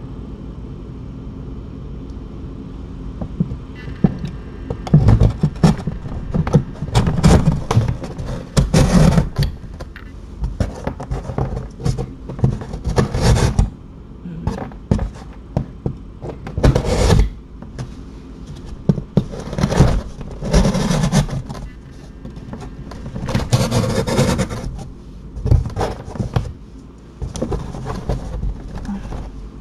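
A person handling and rearranging cardboard boxes and other items: irregular scrapes, rustles and thuds, starting about four seconds in and coming in uneven bursts.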